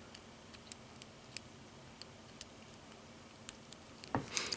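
Faint, irregular metallic clicks of a lock pick and tension wrench working the wafers of an American Series double-sided wafer lock, then a louder metallic rattle near the end.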